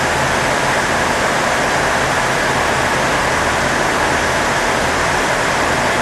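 Class 158 diesel multiple unit's engines running steadily at the platform: a constant low, multi-pitched hum under a loud, even hiss.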